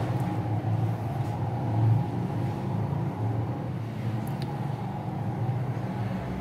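A steady low background hum, with no distinct events.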